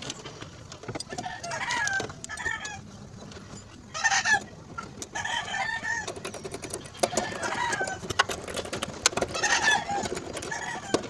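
Chickens clucking: short calls every second or two, the loudest about four seconds in, with faint scattered clicks.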